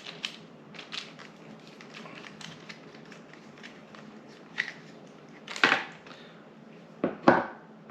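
Hands handling small camera-clamp parts and packaging: scattered light clicks and rustles, with two louder short rustling clatters, a bit past halfway and near the end.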